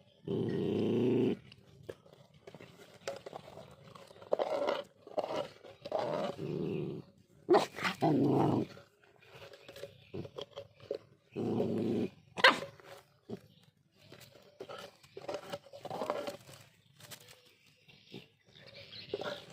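Two dogs growling at each other in repeated short bursts, with a sharp snap about twelve seconds in, as they fight over watermelon.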